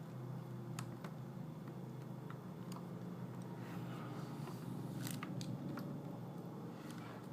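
Scattered small clicks and taps from handling the laptop's replacement LCD panel and housing as it is fitted into place, about seven at irregular intervals, over a steady low hum.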